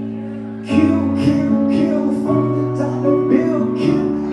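Live band music: a held keyboard chord fades, then about three-quarters of a second in a beat kicks in, with a bass line and percussion hits about twice a second.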